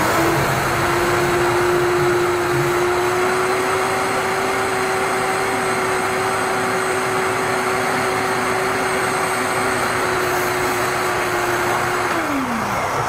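Large wet/dry vacuum sucking out a clogged kitchen sink drain: the motor spins up at the start, runs with a steady whine and rush of air, then is switched off and winds down near the end.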